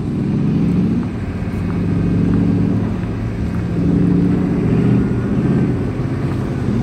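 Deep engine note of a lifted off-road 4x4 moving at walking pace, swelling and rising in pitch, then falling back, a few times as the throttle is opened and eased.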